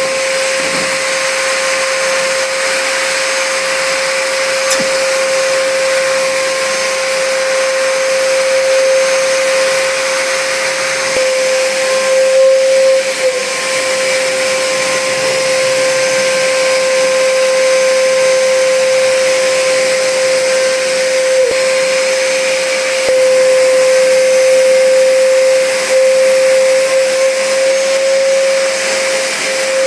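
Trumax MX0120 20-litre wet/dry vacuum cleaner switched on and running steadily: a loud steady whine over a rushing hiss, its pitch dipping briefly a few times as the nozzle sucks dust off a dirty fan.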